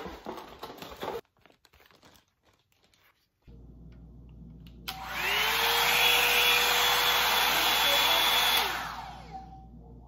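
Plastic wrapping rustles for about a second. Then the Revlon One Step hair dryer brush is switched on: its fan motor spins up with a rising whine, runs with a loud steady rush of air for about three and a half seconds, and winds down as it is switched off.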